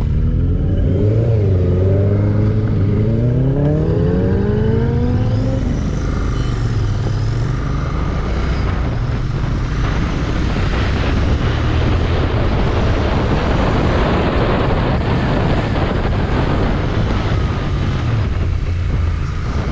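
Royal Enfield Interceptor 650's parallel-twin engine pulling away, rising in pitch with a break for a gear change about a second in, for the first five seconds or so. After that, wind rushing over the microphone covers most of the engine sound as the bike rides on.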